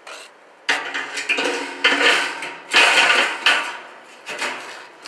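Metal clanking and scraping as the steel expanded-metal cooking grates of a homemade smoker are moved, in several strokes starting about a second in.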